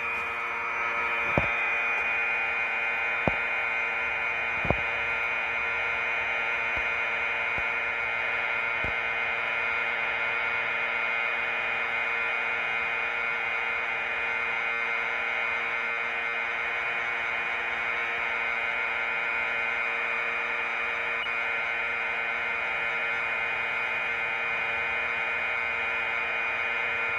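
Commodore VIC-20 program data playing back off a cassette tape: a steady, buzzy whine of several high tones over tape hiss, with a few faint clicks in the first few seconds.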